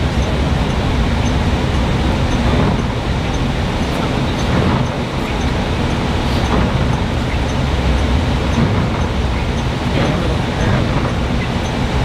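Steady engine and road noise inside a moving bus, its tyres rolling on a snow-covered highway.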